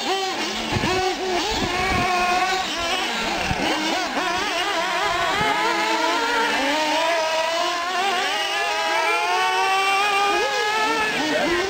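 Several nitro-powered 1/8-scale Associated SC8 R/C short-course trucks running laps, their small glow engines whining high and overlapping as they rev up and back off through the corners, one climbing steadily in pitch through the second half.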